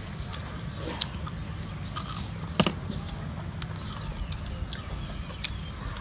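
Eating sounds of people chewing cakes: scattered mouth clicks and soft crunches, with one sharper click about two and a half seconds in, over a steady low rumble.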